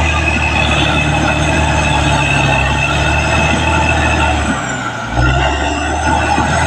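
Caterpillar D6R XL bulldozer at work: its diesel engine running steadily under load, with high squealing from the tracks and undercarriage. The engine note dips briefly about five seconds in and then picks back up.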